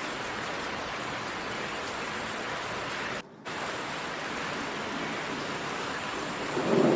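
Heavy rain downpour, a steady hiss that drops out abruptly for a fraction of a second about halfway through. Near the end a low rumble of thunder begins to swell.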